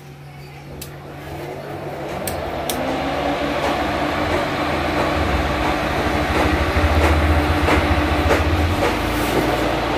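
Cooling fans of a home-built 20-amp class AB BTL power amplifier running after power-on, a steady rushing noise that builds over the first three seconds and then holds, with a low hum and a few clicks near the start.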